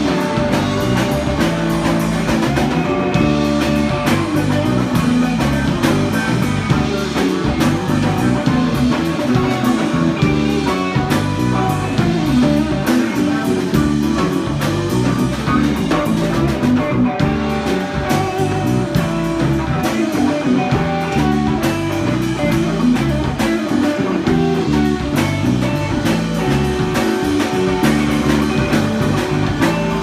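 Live rock band playing an instrumental passage: electric guitar over bass guitar, keyboard and a Pearl drum kit, jam-band style.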